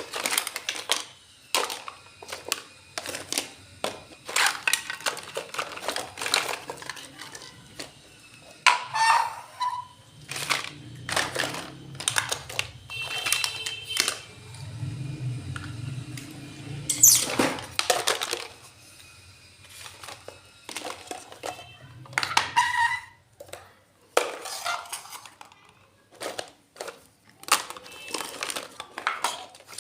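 Miniature toy kitchen pieces clicking and clinking as they are handled and set down: an irregular run of sharp taps, a few with a brief ring like tiny dishes or utensils.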